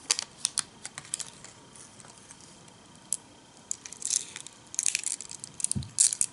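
Small candy balls dropping into a jelly pot and being handled: light scattered clicks and ticks with some packet crinkle, coming in clusters near the start, around four to five seconds in and near the end, with a soft low knock just before the end.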